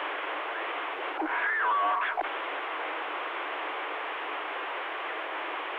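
CB radio receiver hiss: steady static on an open channel between transmissions, with a brief warbling, garbled sound coming through it about a second in.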